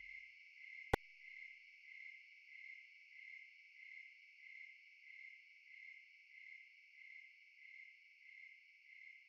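Faint insect chirping, a steady pulsing chirp repeating about one and a half times a second, with a single sharp click about a second in.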